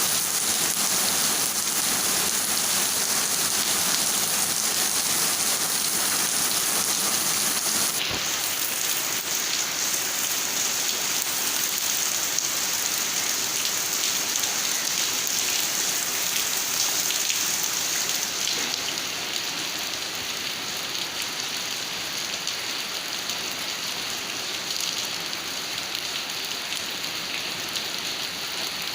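Steady rain falling, an even hiss of many drops, growing a little quieter about two-thirds of the way through.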